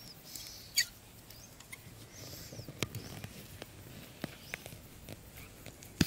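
Hands working a plastic football and threading string and cord through holes in it with a thin metal tool: scattered small clicks, taps and scrapes, the sharpest about a second in.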